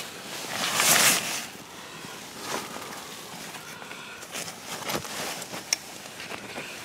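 Nylon fabric rustling and shuffling inside a tent, with a loud swish about a second in, then softer rustles and small clicks, one sharp click near the end.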